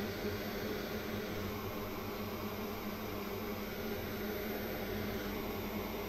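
Steady whir of a workbench fan with a low, even hum, unchanging throughout.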